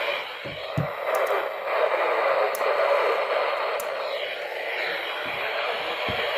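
Radio static: a steady, narrow-band hiss from a radio receiver picking up a weak or noisy broadcast signal.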